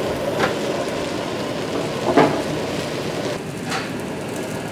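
Salmon fillet simmering in a frying pan of butter, white wine and water: steady sizzling and bubbling as the liquid reduces to a creamy sauce, with three short louder spits.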